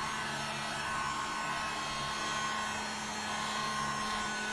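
Hair dryer running steadily, blowing hot air across the surface of freshly poured liquid polyurethane to drive out microscopic bubbles: an even rush of air with a faint steady hum.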